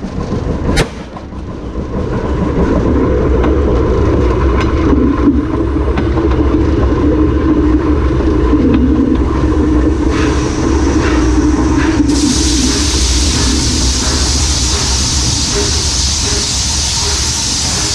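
Locomotive wheels rolling along the rail, with a single sharp bang about a second in: a railway detonator (fog signal) exploding under the wheel as an audible warning to the driver. About twelve seconds in, a loud steady hiss starts suddenly over the rolling noise.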